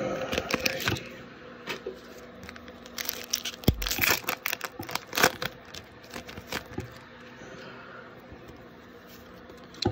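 Crinkling and tearing of a Pokémon booster pack's foil wrapper as it is opened and handled, in irregular bursts, with a soft thump a little under four seconds in.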